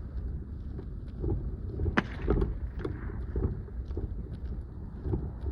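Footsteps walking at a steady pace, about two steps a second, over a steady low rumble of wind on the microphone.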